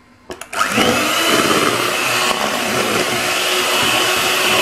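Electric hand mixer switched on with a click about half a second in, its motor whining up to speed and then running steadily as the beaters whip instant coffee, sugar and water into a thick cream.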